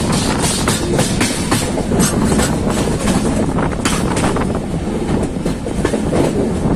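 Passenger express train running along the track: a steady rumble of the coach wheels on the rails, with repeated clacks as the wheels cross rail joints.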